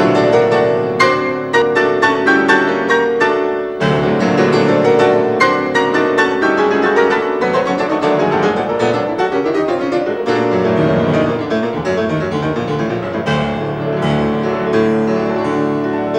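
Grand piano playing classical music: accented chords a few times a second in the first seconds, then a loud new entry and a fuller, flowing passage.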